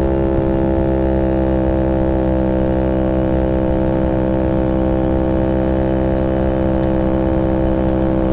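Maddog 50cc scooter's GY6 139QMB four-stroke single-cylinder engine running flat out at a steady, unchanging high pitch on a top-speed run, on an aftermarket Glixal performance CDI.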